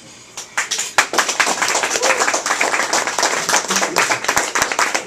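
Audience applauding: clapping starts about half a second in and quickly builds to steady applause.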